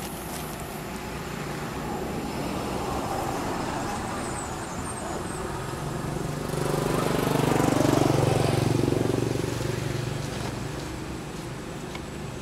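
A motor vehicle passing by: its engine hum grows louder over a few seconds, peaks about eight seconds in, then fades away.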